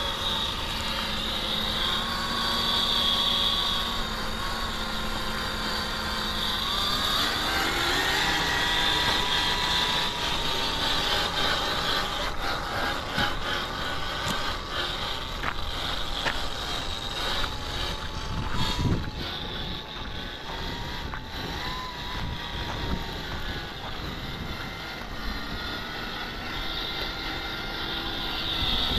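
Electric motor and gearbox of a 1/7 scale RC rock crawler whining as it drives, the pitch rising about a quarter of the way in as it speeds up. Scattered clicks and knocks come through the middle stretch.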